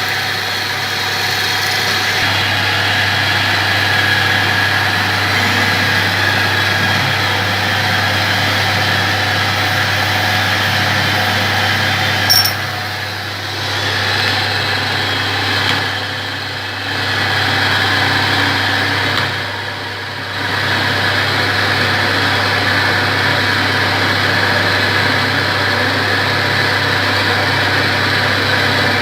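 Lathe running with a steady electric motor hum and a noisy whir of the spindle and gearing. A sharp click about twelve seconds in, and the sound dips briefly three times.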